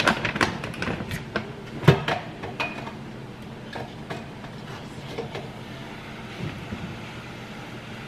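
Clatter of food packaging and cookware being handled at a kitchen counter. A quick run of clicks and knocks comes in the first couple of seconds, with one sharp knock about two seconds in. After that only a few faint ticks sound over a steady low hum.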